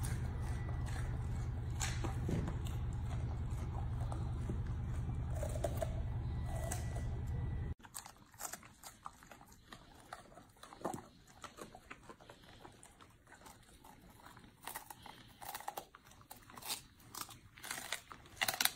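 Golden retrievers chewing raw carrot with crisp crunches over a steady low hum. After a sudden cut, they chew purple broccoli, with irregular crunches that come thicker and louder near the end.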